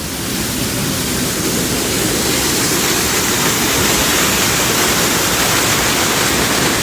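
Waterfall pouring and splashing close by, a steady even rush of falling water.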